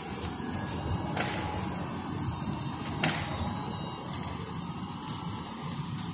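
Diesel engine of a Cat 525D grapple skidder running steadily as it drags a large oak log, getting slightly quieter as it pulls away. Two sharp cracks stand out, about a second in and about three seconds in.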